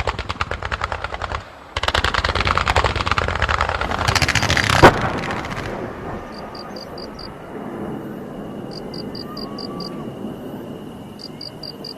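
Firecrackers going off in rapid crackling runs, with a short break about a second and a half in, then a denser run that ends with one louder bang near five seconds. After that the popping stops, leaving a low background with a steady high whine and small groups of short high chirps.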